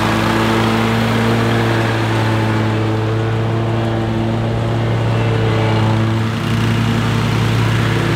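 Toro Grandstand MultiForce stand-on mower running steadily with its blades cutting grass. The engine note holds even, with a short dip about six seconds in.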